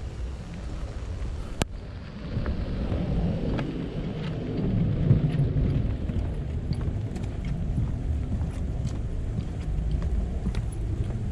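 Wind buffeting the microphone in a low, uneven rumble, with scattered sharp ticks and taps and one louder click about one and a half seconds in.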